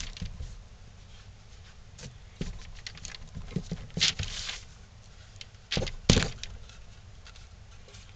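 Metal bar clamps being handled and tightened on a glued wooden block: scattered clicks and knocks, a short scraping slide about four seconds in, and two sharp clacks about six seconds in, the loudest sounds.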